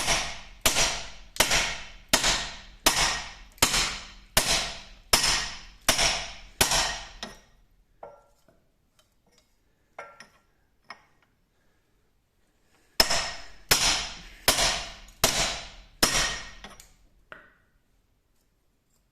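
Hammer blows driving a new lower ball joint up into the wishbone of a MK7 Ford Transit van. The blows come steadily, about one every three-quarters of a second, and each rings briefly: a run of about ten, a pause of a few seconds with a couple of light clicks, then about six more.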